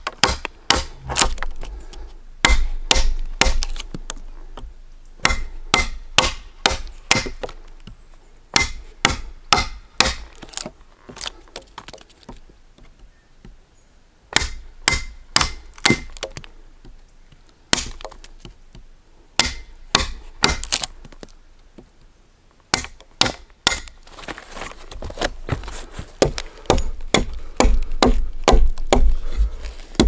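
A chisel and then a hatchet cutting a notch into a peeled log: sharp wooden knocks and cracks as chips split away, in quick runs of strikes with short pauses. Near the end the strikes come faster and heavier.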